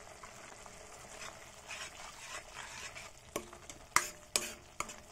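Thick tomato-onion masala sizzling as it fries in a metal kadhai. From about three seconds in, a metal ladle stirs it, clinking and scraping against the pan four times.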